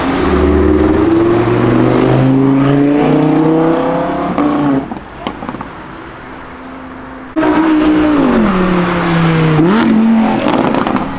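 Car engine accelerating hard, its pitch climbing steadily for about four seconds before it drops away. A second loud engine cuts in suddenly later, its pitch falling, then jumping sharply up and settling.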